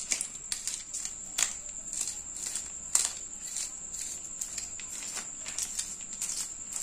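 A one-rupee coin scraping the scales off a whole hilsa fish: short, irregular rasping strokes, two or three a second.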